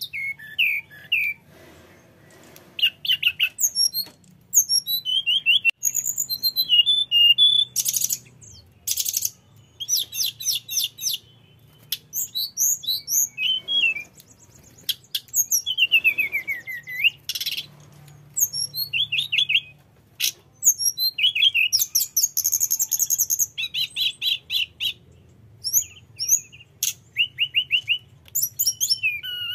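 A male hill blue flycatcher sings a long, varied song: sliding whistles, fast trills and chattering phrases follow one another with short pauses between them.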